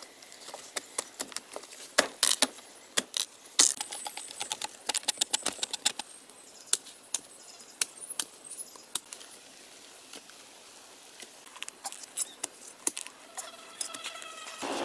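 Hand tools digging into soil and hacking at giant taro corms: a hoe and machete striking earth and fibrous roots in irregular sharp knocks and scrapes, thickest in the first half and thinning out later.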